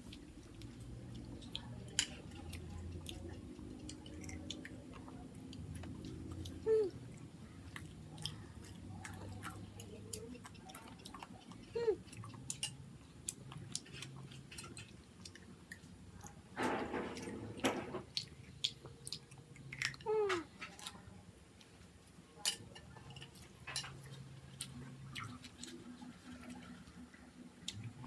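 Children eating: chewing, with scattered clicks of plastic spoons and forks against plates.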